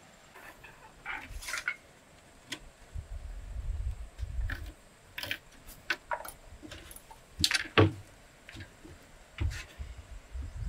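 Scattered light knocks, taps and scrapes of boards and hand tools being handled and set down on a wooden plank floor, with one sharper knock a little past the middle.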